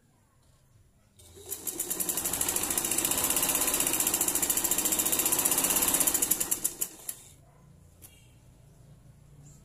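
Domestic sewing machine stitching through fabric: a fast, even run of needle strokes that starts about a second in, speeds up, holds steady, then slows to a stop about six seconds later.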